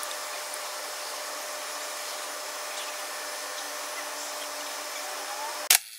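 Steady outdoor background noise: an even hiss with a faint hum in it. A loud, sharp burst comes near the end.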